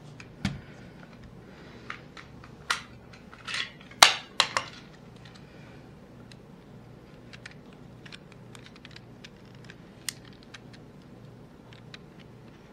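A Samsung SCD27 miniDV camcorder being handled: a series of sharp plastic clicks and knocks, loudest in a cluster about four seconds in, followed by scattered light ticks.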